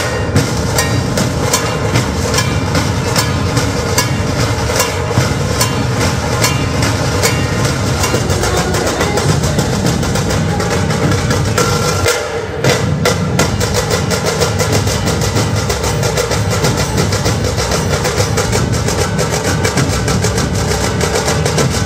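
Dhol-tasha ensemble playing: many large dhol barrel drums beaten with sticks together with tasha drums, in a loud, dense, driving rhythm. A little past the middle the sound dips briefly, then carries on with fast, even strokes.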